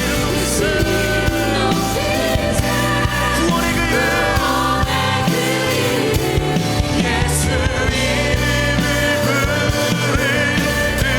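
Live worship music: a church praise team singing over steady instrumental accompaniment.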